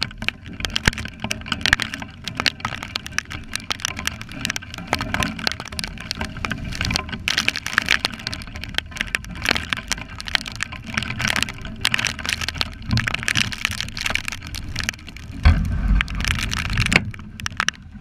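Wind-driven rain hitting the camera's housing as dense, irregular taps, over wind rumbling on the microphone, with a strong gust about fifteen and a half seconds in.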